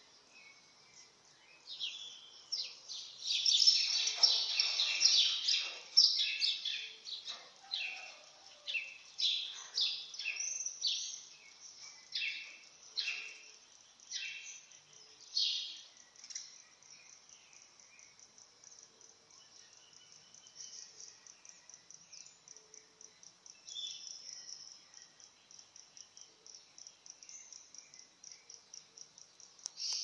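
Birds calling in the dawn chorus. A run of loud, rapidly repeated high calls starts about two seconds in and fades after the halfway point. A thinner, fast, evenly repeated high chirping then carries on.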